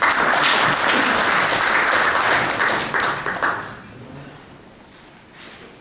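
Audience applauding, starting suddenly and dying away after about three and a half seconds.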